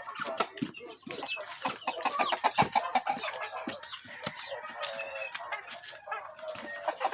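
Chickens clucking: many short, scattered calls.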